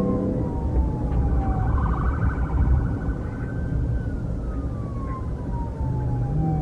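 Police car siren wailing, its pitch sliding slowly down over about three seconds and then climbing back, twice, with a short warbling stretch about two seconds in. Underneath is a steady low rumble of vehicle and road noise.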